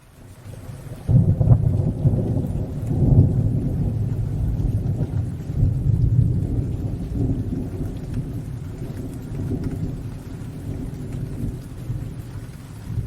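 Rolling thunder over steady rain: a long, low rumble that swells about a second in and slowly dies away, with the hiss of rain underneath.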